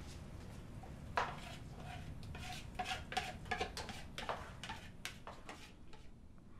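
Kitchen utensil clatter: a spoon clinks and knocks against a cooking pot and bowl as food is scooped in. It makes a quick series of clinks, several ringing briefly, and they stop shortly before the end.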